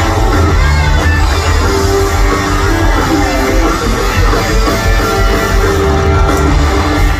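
Live rock band playing loudly through the venue's sound system: guitars over bass and drums, an instrumental passage with no singing.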